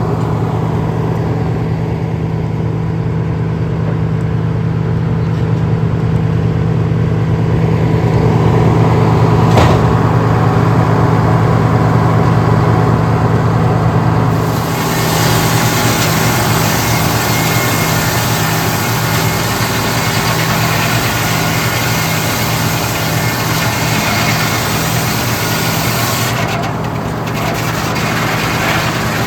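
Old circle sawmill running: a steady engine drone throughout, joined about halfway through by a loud, even hiss of the saw cutting that lasts almost to the end.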